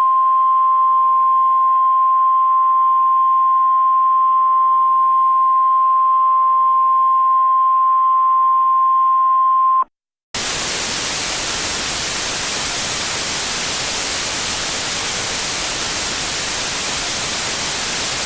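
A steady, high-pitched broadcast test tone over faint hiss for about ten seconds. It cuts off suddenly, and after a brief gap loud television static takes over: a station's signal going off the air.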